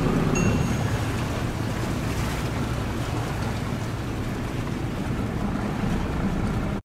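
Ferry-harbour ambience: wind buffeting the microphone over a low rumble and the wash of sea water. A short high beep sounds about half a second in, and the sound cuts off suddenly near the end.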